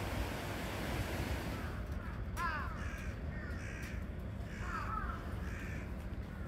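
A bird giving several short, arching calls, the loudest a little over two seconds in and again about five seconds in, over a steady low background rumble.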